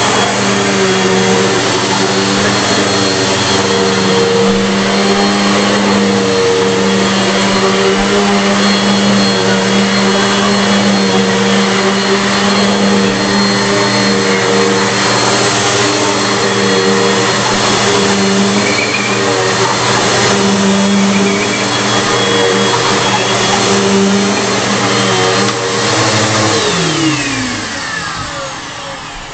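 Bissell PowerForce bagless upright vacuum cleaner running steadily. Near the end its motor is switched off and winds down, its pitch falling away.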